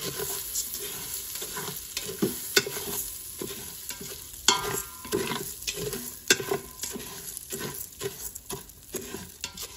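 A spatula stirring dry rice and vermicelli in a stainless steel Instant Pot inner pot, scraping and tapping against the metal in irregular strokes while the grains rustle, over a faint sizzle of the butter as the pasta and rice toast on sauté. A brief squeak about halfway through.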